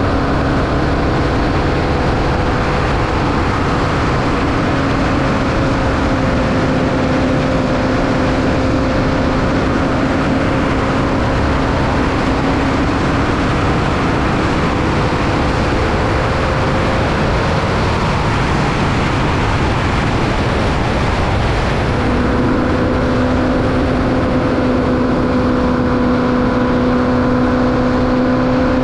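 Onboard sound of a 1200cc Formula Vee's air-cooled Volkswagen flat-four engine running hard at racing speed, with wind and road noise. The engine note fades for a few seconds about two-thirds of the way through, then comes back lower and slowly climbs.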